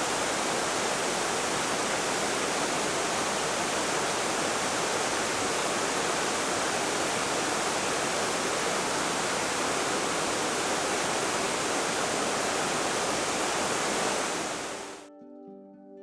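Steady rush of water, an even hiss with no rhythm, that fades out near the end and gives way to soft plucked guitar music.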